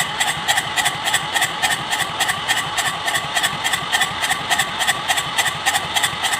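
Kubota Z751 two-cylinder diesel engine running steadily at idle with an even, rapid pulsing, having caught after hard starting.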